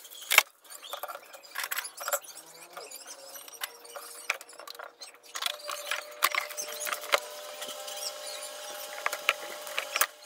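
Irregular sharp clicks and knocks of tools and hands working a flyback transformer loose from a CRT TV's circuit board, the loudest click about half a second in, with faint high squeaks now and then.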